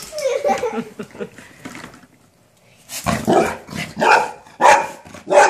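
Golden retriever barking at a toy, about five sharp barks roughly half a second apart in the second half, after a quieter stretch of lower sounds.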